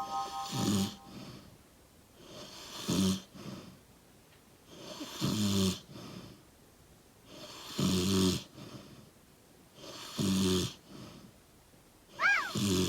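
A sleeping man snoring: a low, rough snore about every two and a half seconds, with fainter breathing between the snores.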